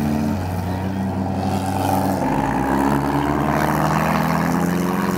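Several demolition derby cars' engines running and revving together, their pitch shifting about half a second in and again around two seconds in.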